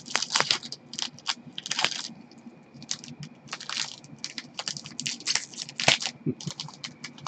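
Trading card pack wrappers crinkling and cards rustling as they are handled, a run of irregular sharp crackles.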